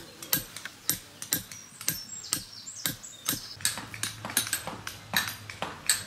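Hand chisels being struck into stone with mallets and hammers: a run of sharp, irregular taps, about three a second, from more than one carver working at once.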